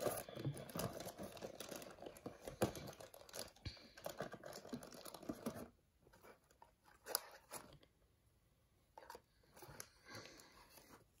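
Trading cards being handled on a tabletop: faint rustling and light clicks for about six seconds, then only a few scattered taps.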